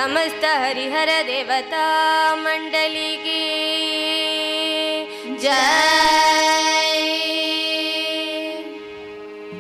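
A group of girls singing a Carnatic-style devotional bhajan together over a steady drone: quick ornamented phrases, then long held notes, then a new phrase that rises about five and a half seconds in and is held before the voices fall away near the end.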